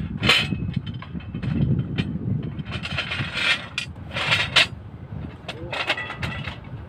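Steel anchor bolts and a steel template plate scraping and clanking against a rebar cage as they are shifted into place, in several short bursts over a steady low rumble.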